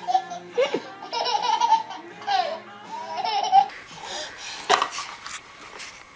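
A baby laughing in repeated high bursts over background music, which stops about two-thirds of the way through, followed by a few sharp clicks.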